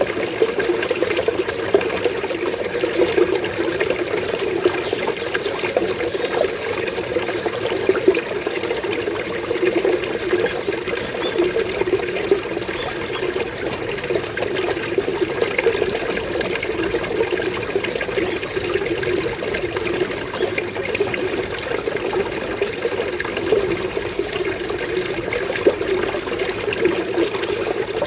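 Flowing water burbling steadily with a low, gurgling kopo-kopo sound.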